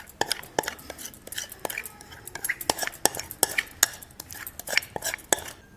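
A spoon clinking and scraping against a dish in quick, irregular taps as cake batter is spread out and topped with berries.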